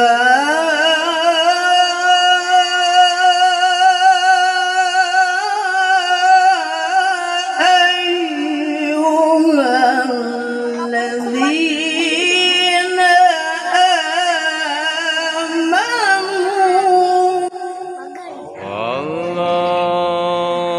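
A qari reciting the Quran in the melodic tilawah style, in a high voice, holding long ornamented notes that waver and turn in pitch. The line breaks off about 17 seconds in, and a lower, steadier held phrase follows near the end.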